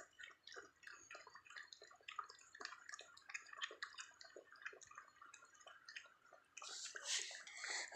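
Faint, irregular wet clicking of a puppy eating, with a short soft rush of noise near the end.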